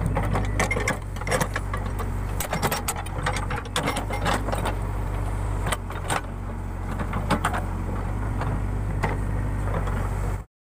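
Case 580 Super K backhoe loader's diesel engine running steadily with frequent metallic clanks and rattles from the digging gear; the sound cuts off suddenly near the end.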